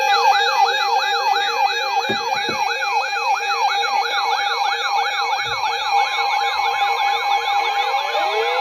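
Several electronic emergency-vehicle sirens sounding at once: a fast yelp sweeping up and down about three to four times a second, a steady tone, and a low two-note warble, with a slow wail beginning to rise near the end.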